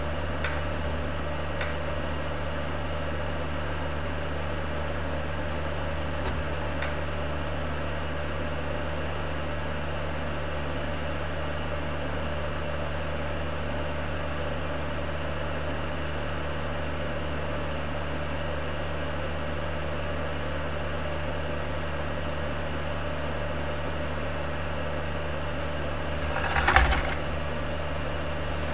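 Steady low electrical hum with hiss and no music, with a few faint ticks in the first seconds and one short loud noise near the end.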